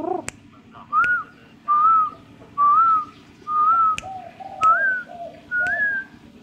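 Short clear whistled notes repeating about once a second, edging up in pitch toward the end, with a caged dove's softer low cooing between them. A few sharp clicks cut across.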